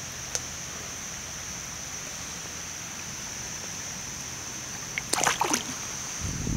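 Jack Russell terrier wading in shallow water over stones: quiet water noise, with a brief patch of splashing about five seconds in.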